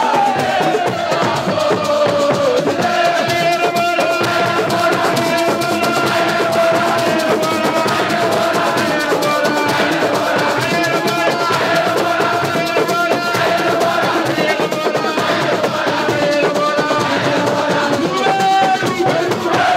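A crowd of supporters singing together over dense, fast drumming and rattling percussion, with long held notes in the voices.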